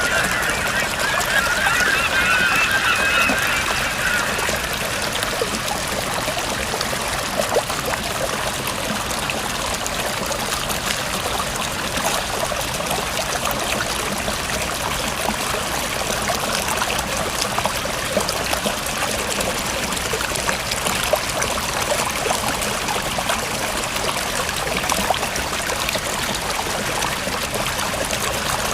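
Stream water running and trickling steadily. A wavering, high-pitched call sounds over it during the first four seconds.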